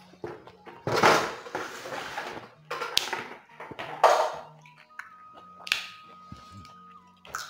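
Raw papaya stems and leafy greens being snapped, torn and crunched while eating, with loud crunchy bursts about a second in and again around four seconds and a sharp snap near three seconds.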